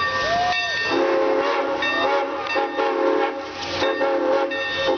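Santa Fe 3751 steam locomotive's whistle, first a brief rising-and-falling toot, then from about a second in a chord of steady tones blown in several long blasts with short breaks, over the steady hiss of the engine arriving.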